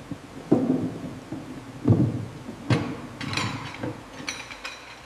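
Irregular work clatter: a few dull knocks and thuds, then from about halfway a run of sharper metallic clanks and clinks that ring briefly.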